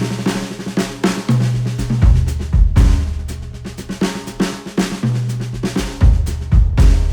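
Recorded music playback: an instrumental passage led by a drum kit, with sharp snare and kick hits over held bass notes, played back through a headphone DAC.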